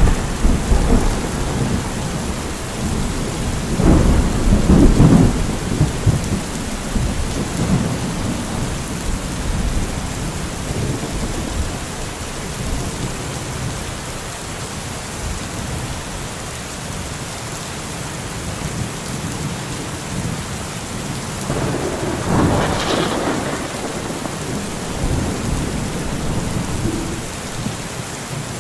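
Steady heavy rain with rolls of thunder: a loud rumble at the start and again around four to five seconds in, then a fainter one a little after twenty-two seconds.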